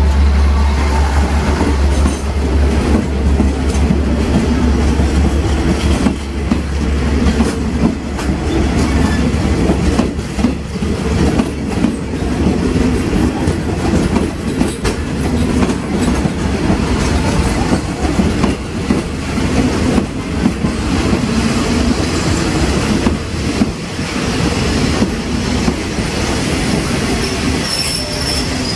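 State Railway of Thailand passenger coaches rolling past at close range, wheels clattering over the rail joints in a steady run of clicks. A deep hum is strong for the first several seconds and then fades.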